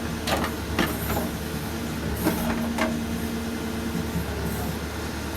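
Case 770FX backhoe loader's diesel engine running steadily, with several sharp metallic knocks in the first three seconds.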